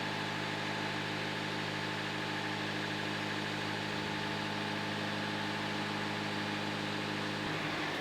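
An engine idling steadily, its even hum shifting slightly near the end.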